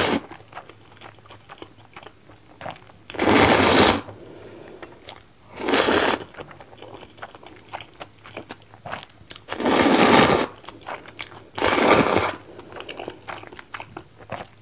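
A person slurping saucy instant noodles, jjajang ramen mixed with spicy jjamppong ramen, in five loud sucks of under a second each, with soft chewing and mouth clicks in between.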